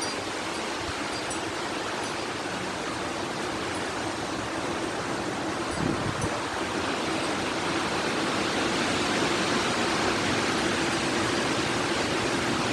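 Strong wind blowing in a steady rush, growing slightly louder in the second half.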